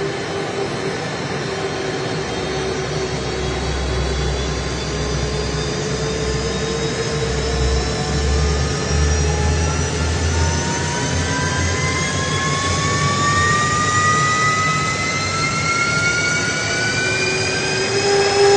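F-15 fighter jet's engines running with a steady jet rush and a low rumble, then a whine that rises steadily in pitch through the second half as the engines spool up.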